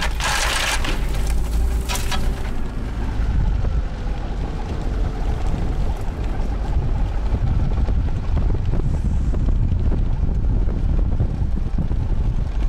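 Off-road vehicle driving over a rough dirt track: a steady low rumble of engine and tyres, with wind buffeting the microphone held out of the window. In the first two seconds, bushes scrape twice along the side of the vehicle.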